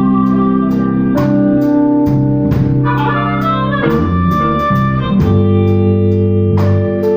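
Blues band music: held chords over a steady drum beat.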